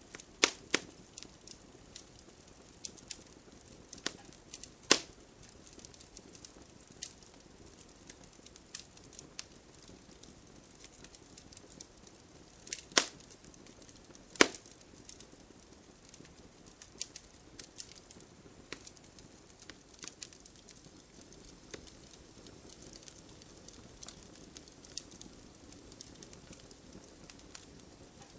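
Bonfire crackling with irregular sharp pops of burning wood, a few much louder than the rest, over a soft steady hiss of gentle rain.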